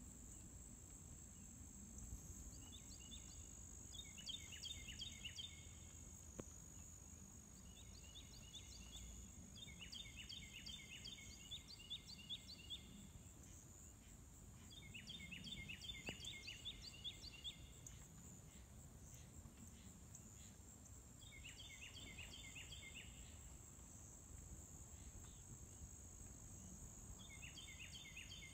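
Faint outdoor ambience of a field by pine woods: a steady high insect drone, with short bursts of rapid, evenly repeated chirping trills every few seconds.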